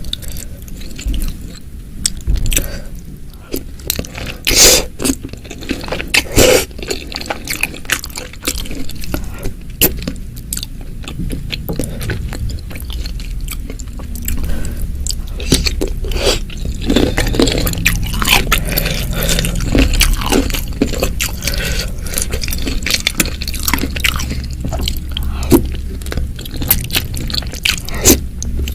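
A person eating spicy meatball soup close to the microphone: chewing and biting with a run of sharp, wet clicks and crunches, two louder ones about 5 and 6.5 seconds in.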